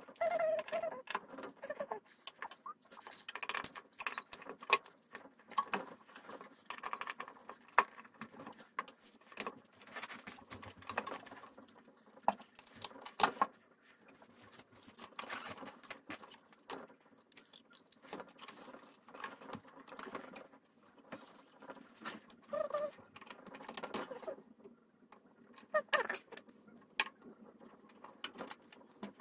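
Sped-up time-lapse sound of pinball playfield work: a rapid patter of clicks, taps and rattles as rubber rings, posts and plastics are handled, with brief high squeaky chirps scattered through the first half.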